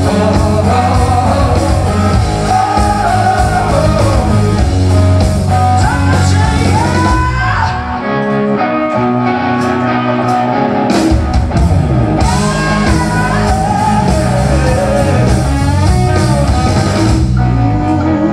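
Live rock band playing loud: electric guitar, bass and drums, with a singer's vocals. The band eases off briefly about eight seconds in, then comes back with sharp accented hits.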